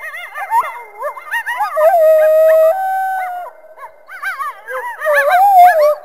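A group of coyotes howling and yipping together: several voices overlap in quick rising-and-falling yips, with one long held howl from about two to three and a half seconds in, and the yipping picking up again near the end.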